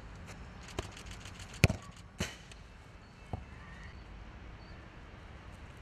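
A football being juggled: four sharp thuds as the ball is struck, the second one much the loudest, over steady outdoor background noise.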